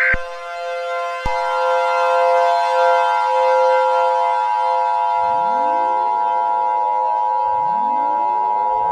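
Emergency Alert System mock-up: a short burst of the SAME data header ends right at the start, then from about a second in the steady two-tone EAS attention signal sounds over steady siren tones. From about five seconds in, civil defense sirens wind up with rising pitch, three times.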